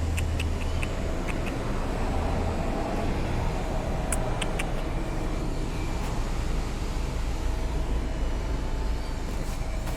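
Steady low rumble of road traffic, with a few faint clicks about four seconds in.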